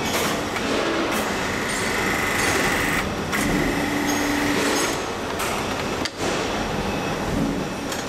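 A rebar coupler press running: a steady mechanical whir with a held high whine and a lower hum, with brief drops about three seconds and six seconds in.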